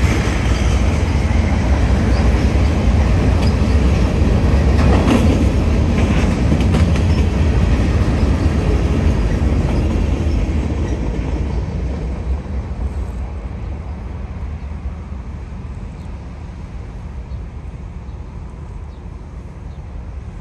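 Freight train cars rolling past on the track, loud at first. The sound fades steadily over the second half as the end of the train moves away.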